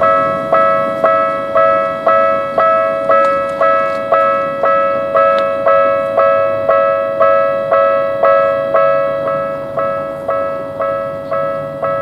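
Japanese railway level-crossing alarm ringing: an electronic bell striking about twice a second, each strike a two-tone ding that fades before the next.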